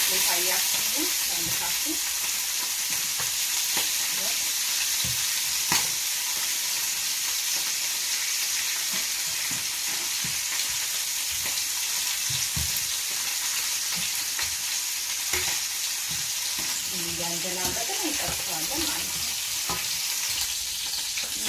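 Lamb ribs sizzling steadily in oil in a frying pan, with occasional clicks and scrapes of metal tongs against the pan as the pieces are turned.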